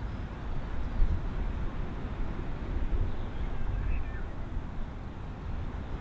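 Strong gusty wind buffeting the microphone in uneven low rushes, over the faint distant drone of an ATR 72-600 twin turboprop on final approach.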